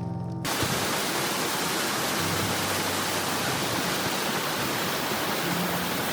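A steady, even rushing noise that starts abruptly about half a second in, as music cuts off.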